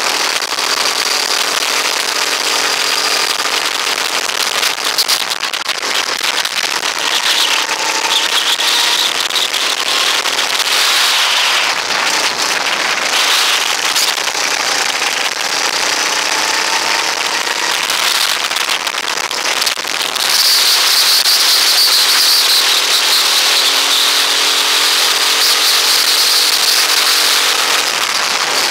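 Rental go-kart engine running at racing speed under heavy wind noise buffeting the onboard microphone; the engine pitch wavers up and down with the throttle, and the rush gets louder about twenty seconds in.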